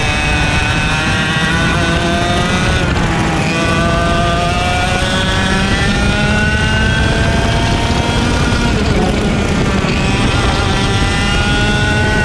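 IAME X30 125cc two-stroke kart engine on full song, revving up in long rising pulls down the straights and dropping sharply twice as the driver lifts for corners, about three seconds in and again about ten seconds in, over a steady low rumble.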